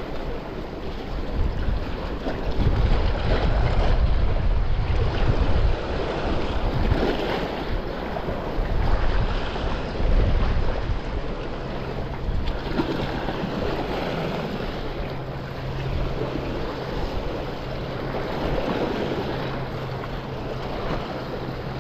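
Sea washing against shoreline rocks, with wind rumbling on the microphone, heaviest in the first half.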